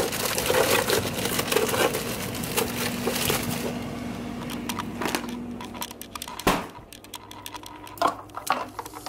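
Plastic bag crinkling and rustling as it is handled, then a few sharp knocks, the loudest about six and a half seconds in.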